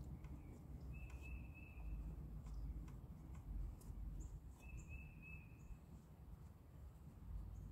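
A bird calling: a steady high whistled note, each about a second long, given twice, with a few short higher notes between, over a low background rumble.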